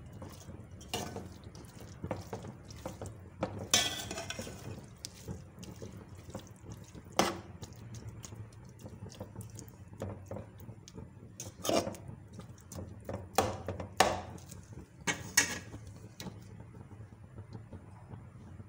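A spatula stirring chicken mince and chopped tomatoes in an aluminium pot, scraping and knocking against the pot at irregular intervals, with soft wet squelches from the mixture.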